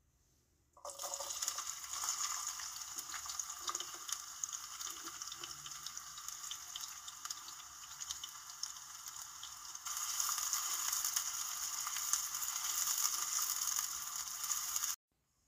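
Canned tuna in oil sizzling in a hot nonstick frying pan as it is scraped in and stirred with a spatula. The sizzle starts suddenly about a second in, gets louder about ten seconds in, and stops abruptly just before the end.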